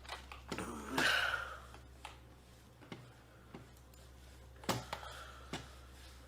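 A few scattered clicks and knocks, with a short rustle about a second in and a sharper knock near the end, over a faint steady low hum.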